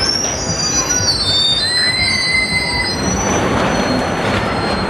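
S.D.C. Hurricane steel roller coaster car running along its track, its wheels squealing in several high tones for about the first three seconds over a steady rolling rumble.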